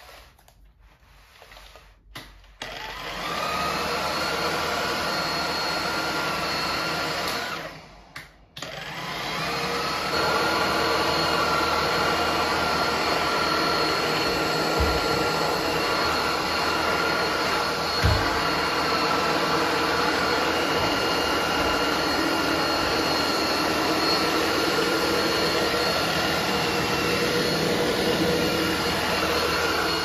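Philips SpeedPro Aqua Plus cordless stick vacuum switched on about two seconds in and running with a steady whine, cut off for a moment around eight seconds in, then running again louder from about nine seconds in, at a higher suction mode. A couple of light knocks come partway through.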